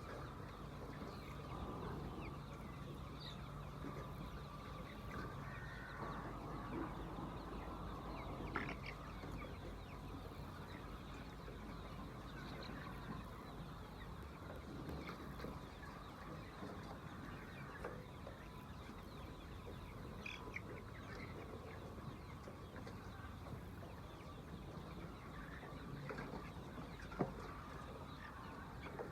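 Laying hens clucking faintly, with scattered short calls over a steady low background noise, and a single sharp click near the end.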